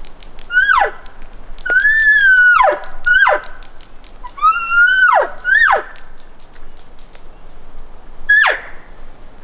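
Elk calling: a run of about six high whistled calls, two of them held for about a second, each ending in a steep downward slide, with faint rapid clicking between calls.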